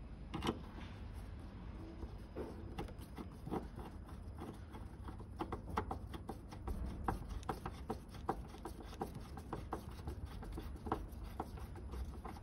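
A series of light, irregular clicks and taps, a few each second and busier in the second half, over a steady low rumble.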